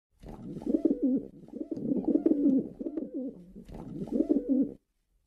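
Rock pigeon cooing: a series of low coos, each rising and falling in pitch, stopping just before the end.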